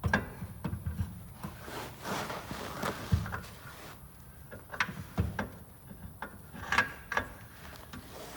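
Irregular metallic knocks, clinks and clicks of a CV axle and its bolts being fitted back into the rear of a car by hand, with a scraping rub about two to three seconds in.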